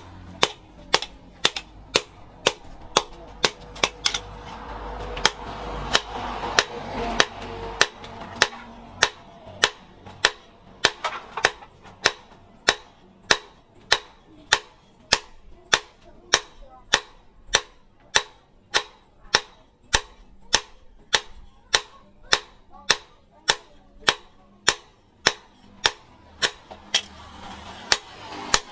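Hand hammer blows on a red-hot steel blade forged from rebar, over a steel post anvil. The strikes are sharp, steady and even, about two a second.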